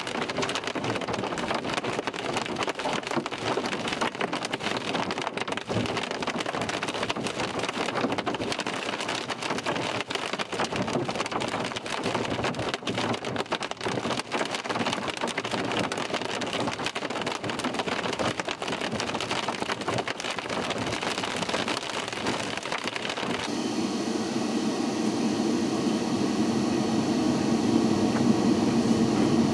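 Hail and heavy rain pelting a moving vehicle, a dense crackle of many small impacts. About 23 seconds in, it switches abruptly to a steadier, lower rumble.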